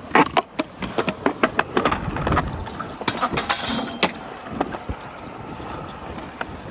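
Streetboard wheels rolling on skatepark concrete, with a quick series of sharp clacks and knocks in the first few seconds, then a steadier rolling noise.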